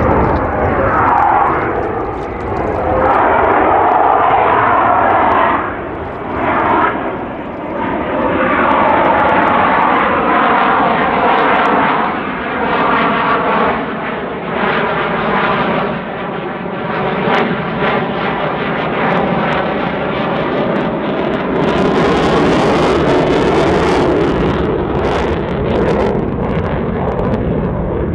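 The CF-18 Hornet's twin General Electric F404 turbofans are loud and continuous as the jet climbs and passes. A sweeping, falling whoosh runs through the middle, and sharp crackles come through in the last quarter.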